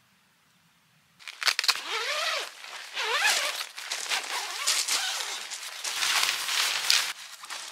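Tent fabric rustling and crinkling as it is grabbed, shaken and pulled by hand, with short squeaky swishes. It starts suddenly about a second in and stops shortly before the end.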